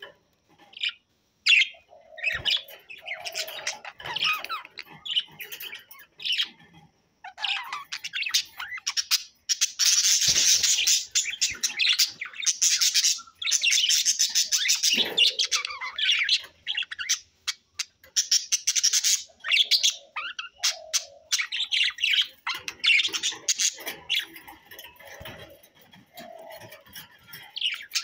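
A flock of budgerigars chirping and warbling. Short, separate chirps come first; about a third of the way in they break into a long stretch of busy, unbroken chattering, then go back to scattered chirps near the end.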